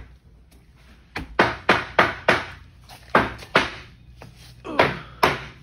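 Footsteps of hard-soled shoes on a bare hard floor, about ten sharp steps in short runs with pauses, echoing in an empty room.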